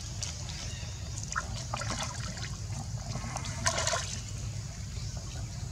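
Pool water trickling and lapping as macaques swim and dip into it, with a few brief splashes, the loudest about four seconds in.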